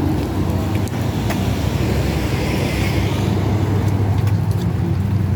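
Car engine and road noise heard from inside the cabin while driving: a steady low rumble with a few faint clicks.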